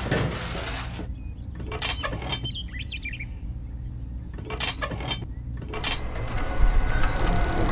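Small clicks and taps of a screw and metal fittings being handled and fastened on a miniature model, over a low steady hum, with a few faint bird-like chirps about midway. Near the end a steady high-pitched electronic beeping starts.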